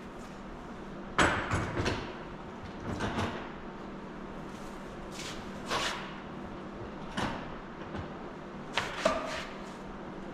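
Sharp wooden knocks and clacks at irregular intervals, some in quick pairs, as pine trim pieces are fitted to a wooden display case.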